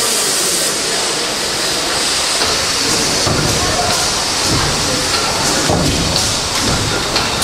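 Steady hiss of steam from the Bratch steam engine, with people's voices coming in over it from about two and a half seconds in.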